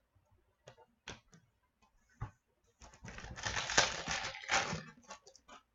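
A few scattered light clicks of trading cards being handled, then about two seconds of dense crinkling as a foil trading-card pack is torn open.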